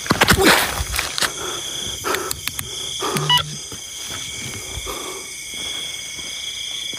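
Night insects keep up a steady high-pitched chorus. In the first second there is loud rustling and knocking from footsteps and handling, with softer low calls or breaths here and there after it.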